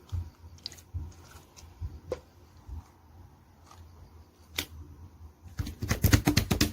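A few scattered light clicks and soft knocks, then near the end a fast, steady run of key clicks: typing on a keyboard.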